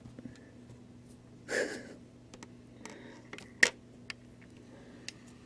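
A cat stepping onto and across a sheet of paper on a workbench: a short rustle about a second and a half in, then a few light taps and clicks, one sharper click a little past the middle, over a low steady hum.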